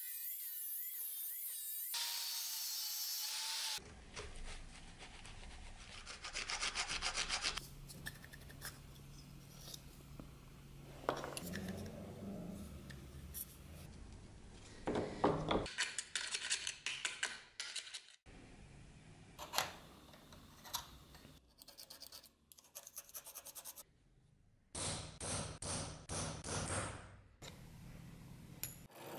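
An angle grinder cuts into the steel knife blade for the first few seconds, a steady rushing grind with a wavering whine, then stops abruptly. After that come quieter, stop-start passages of rhythmic scraping strokes from hand work on metal and horn.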